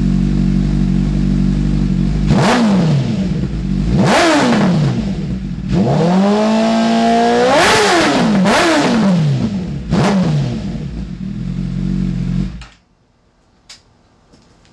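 2008 Honda CBR1000RR's inline-four, warm, running through a DanMoto aftermarket exhaust: idling, then four quick throttle blips and one longer held rev that rise and fall in pitch. The engine is shut off about twelve and a half seconds in.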